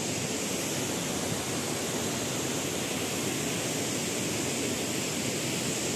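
Fast-flowing floodwater rushing out below a dam, a steady, even rush of noise.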